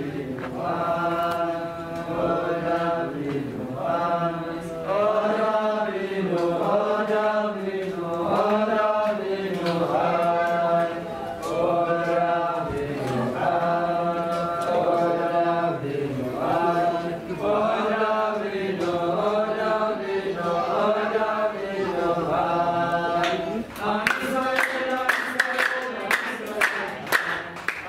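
A congregation of men singing together in unison in short, repeated phrases. Hand clapping joins in near the end.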